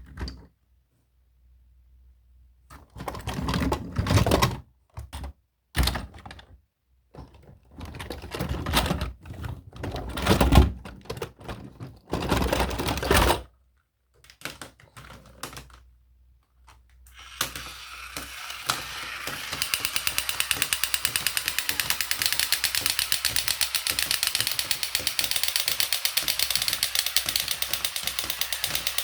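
Several short rustling and handling noises, then from a little past halfway a battery-powered toy vehicle's small motor and gears running with a steady, rapid, even clicking.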